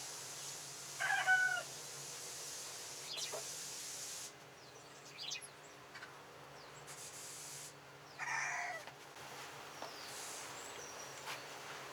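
A chicken calling twice, each call short and pitched, about a second in and again about eight seconds in. Faint clicks and taps come in between.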